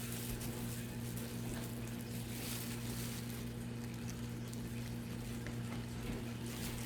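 Steady low electrical hum over a faint hiss, unchanging throughout, with only a few very faint ticks.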